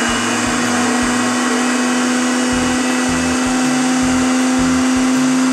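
High-speed countertop blender running at full speed, grinding raw walnuts into flour: a loud, steady motor whine.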